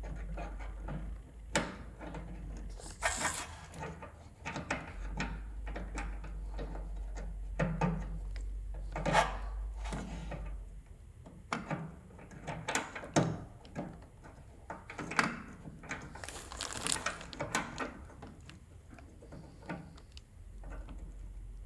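Plastic parts of a microwave door-latch assembly being handled and pressed back into place: irregular clicks and knocks, with a few short scraping rustles.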